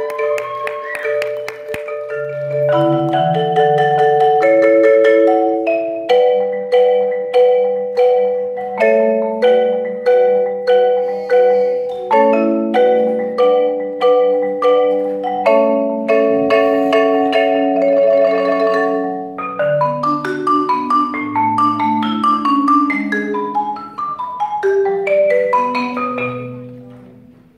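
A marimba played by three players at once with mallets, sounding melody and chords. Through the middle the notes fall on a steady beat of about two strikes a second, and the music dies away near the end.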